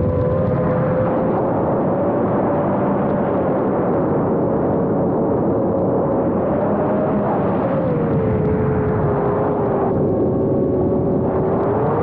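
5-inch FPV quadcopter's motors and propellers, heard from a camera mounted on the quad: a steady buzzing whine that wavers in pitch with the throttle, sinking lower about two-thirds of the way through and climbing back near the end, over a rough rushing noise.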